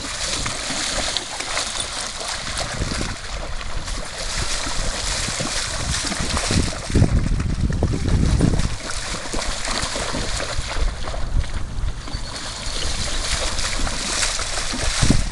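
Splashing and sloshing as a person and a small puppy run through shallow lake water, a steady jumble of splashes with a heavier low rumble about halfway through.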